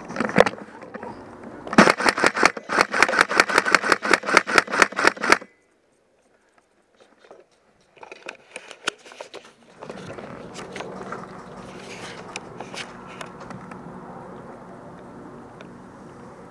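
An airsoft MP5 fires a short burst right at the start, then a rapid string of evenly spaced shots for about three and a half seconds. The sound then cuts out completely for a couple of seconds and comes back with a few clicks and a steady low background noise.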